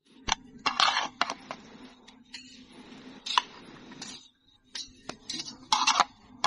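Metal spatula scraping and knocking against a metal serving tray and ceramic plates as rice is dished out: a string of short, sharp scrapes and clinks, loudest about a second in and near the end.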